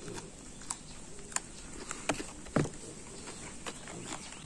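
A person chewing food with the mouth close to the microphone: a few scattered wet clicks and smacks at irregular intervals, the strongest a little over halfway through.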